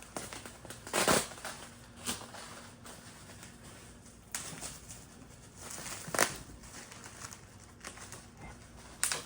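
Packing material crinkling and rustling as a package is unpacked by hand, in a few short rustles. The loudest come about a second in and about six seconds in.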